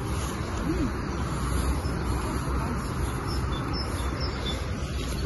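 Steady outdoor background noise, with a few faint bird chirps.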